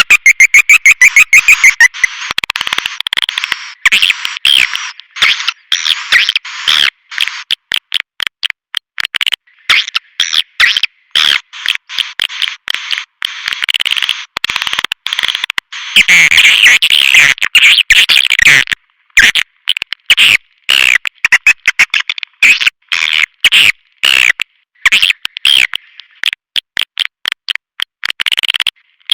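Swiftlet calls from a swiftlet-caller (lure) recording: dense high twittering and chirping, with a fast run of loud chirps at the start, broken again and again by brief dead-silent gaps. This is the playback used to draw swiftlets into a nesting house.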